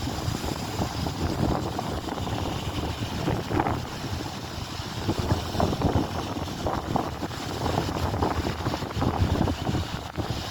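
Strong wind buffeting the microphone: a loud, gusty low rumble that rises and falls throughout.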